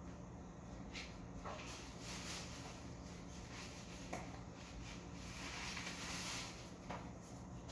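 Faint handling noises from someone moving things about in a room: a few scattered light clicks and a soft rustle about five to six seconds in, over a low steady hum.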